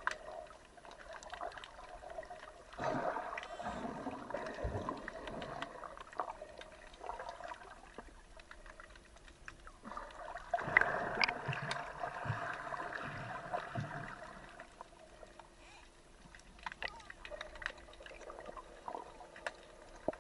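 Muffled water sloshing and gurgling heard through an underwater camera housing, swelling louder twice, with a few light clicks. A faint steady hum comes in near the end.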